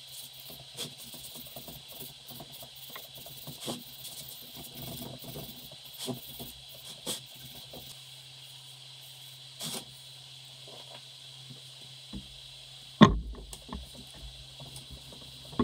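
Scattered short clicks and knocks, with one loud knock about 13 seconds in, over a steady low hum and a faint high whine.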